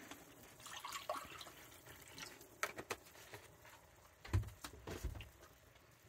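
Lemon caper sauce of chicken broth simmering in a cast iron skillet, with faint bubbling and scattered small pops. A soft low thump comes a little past four seconds in.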